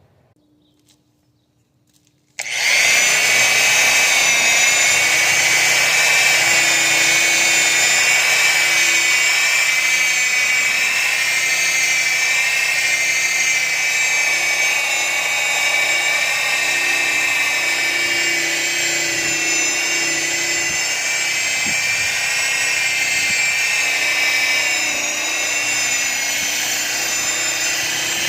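A handheld electric power tool starts up about two seconds in and runs steadily with a high whine that wavers slightly in pitch, working on a plastic car headlight lens during restoration.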